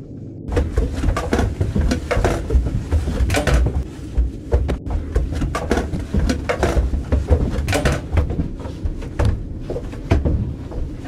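Irregular footsteps and knocks of handled gear as someone moves through a small room, with a low rumble of handling noise on a body-worn camera's microphone.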